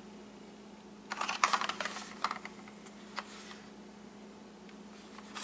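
Hard plastic toy car being handled and turned in the hands: a cluster of light clicks and rattles about a second in, then a few single clicks.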